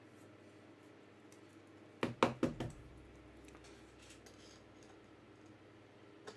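A quick cluster of about four sharp plastic clicks and knocks about two seconds in, as a trading card in a hard plastic case is handled and set down on its stand, with one faint click near the end.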